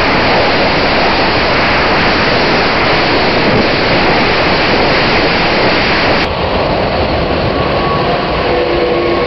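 Loud, steady rushing of wind and road noise from a car at highway speed, heard at an open side window. About six seconds in, the hiss loses its top and turns duller.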